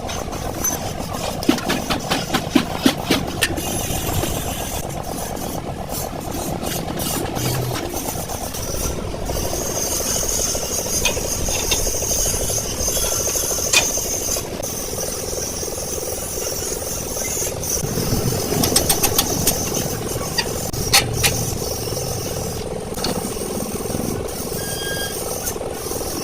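An engine running steadily, with several bursts of sharp knocks and taps.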